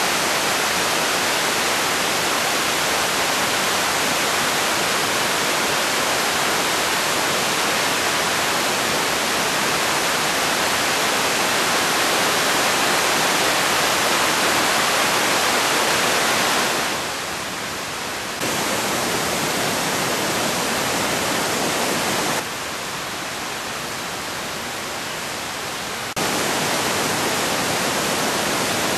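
Amicalola Falls, a tall cascading mountain waterfall, rushing: a loud, steady roar of white water pouring over rock. Twice in the second half it drops abruptly quieter for a second or a few seconds, then jumps back up.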